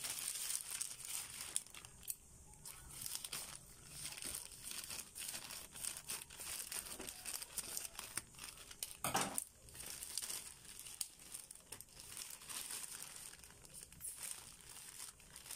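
Thin black plastic courier pouch crinkling and rustling as it is handled, torn and cut open with scissors, in irregular crackles throughout.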